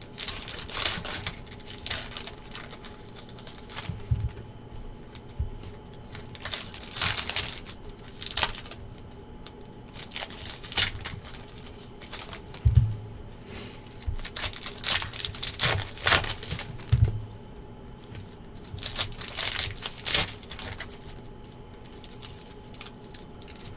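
Foil trading card pack wrappers crinkling and rustling while basketball cards are handled, in irregular bursts, with a few soft low thumps, about 4, 13 and 17 seconds in.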